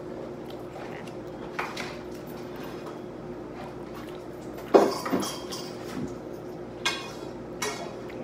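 Scattered short clicks and smacks of someone peeling shrimp by hand and eating them. The loudest comes about five seconds in, over a faint steady hum.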